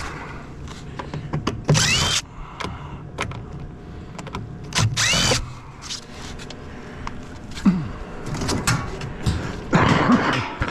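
Cordless drill backing screws out of a gas heater's sheet-metal casing in short whining bursts, about three times, with clicks and knocks of metal parts in between.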